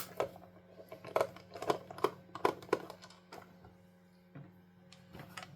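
Irregular light clicks and taps of small hard parts being handled: the plastic Sega Mega Drive controller and its small Phillips screws. There are a dozen or so in the first three seconds, a short lull, then a few more near the end.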